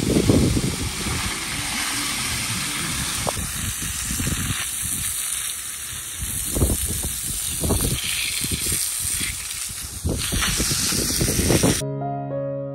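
Garden hose spray hissing steadily as water sprays onto plants and dry ground, with uneven low rumbling under it. Near the end it cuts off abruptly and piano music begins.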